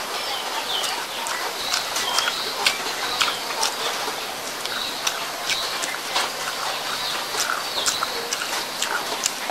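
Close-up chewing of fried stuffed tofu and raw chili: irregular wet mouth clicks and lip smacks over a steady hiss, with short high chirps scattered throughout.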